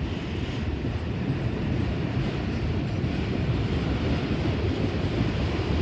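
BNSF freight train of autorack cars rolling past, a steady low rumble of wheels on the rails.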